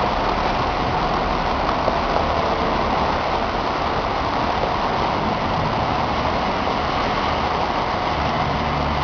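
Two diesel-electric locomotives running steadily as they haul a train of tank cars, a low engine drone under a steady hiss of train noise.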